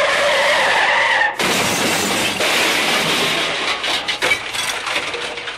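A loud squeal, slightly falling in pitch, lasts about a second and a half and breaks off into a long crash of shattering glass and clattering debris, the stock screech-and-crash sound of a car smash.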